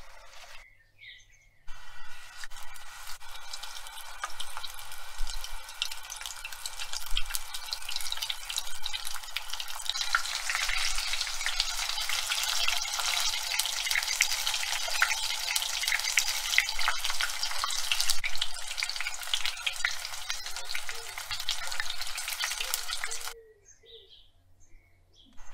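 Battered food deep-frying in hot oil: a dense, steady crackle and sizzle of many small pops. It starts after a brief near-quiet pause about a second in, is fullest in the middle, and drops away to near quiet about two seconds before the end.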